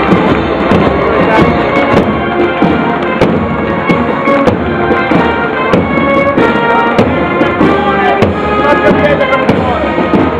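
Military marching band playing a march as it passes: brass with marching drums beating time.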